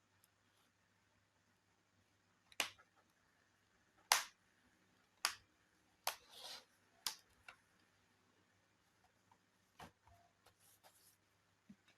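Sharp, scattered clicks and taps from handling a laptop's casing and parts by hand, about six distinct ones, with a short scrape just after six seconds in and a few fainter ticks near the end.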